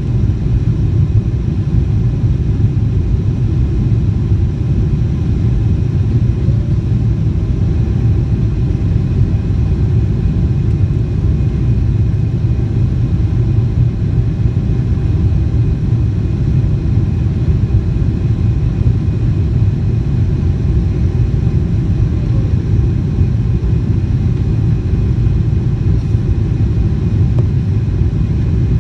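Airliner during takeoff and climb: a loud, steady rumble of jet engines and airflow with faint steady tones above it, unchanging throughout.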